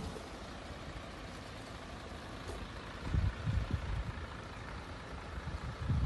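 Houses burning close by: a steady rushing noise from the fire with faint scattered crackles. Low rumbling buffets come in about three seconds in and again near the end.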